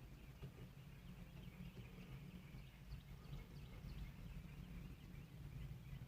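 Quiet field ambience: faint short bird chirps over a steady low rumble.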